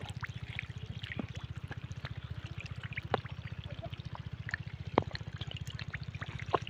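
Shallow muddy water trickling, with scattered small ticks and drips. Under it runs a steady low throb, pulsing many times a second, with one sharper click about five seconds in.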